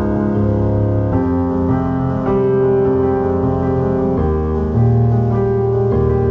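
Background music on piano, with sustained chords that change about once a second.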